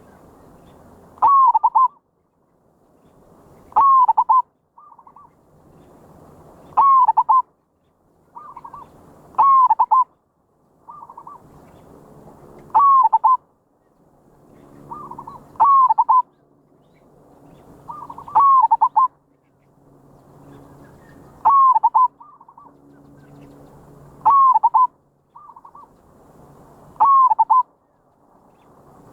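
Zebra dove (merbok) cooing: a short call phrase repeated evenly about every three seconds, ten times, each opening with a sharp high note, with a faint hiss between calls.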